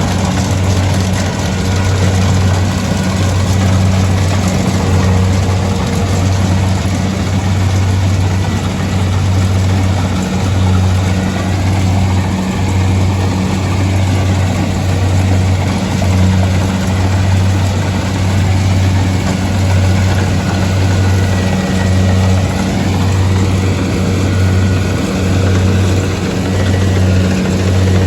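Rice harvesting machine's engine running steadily: a deep, even hum with a slight regular pulsing.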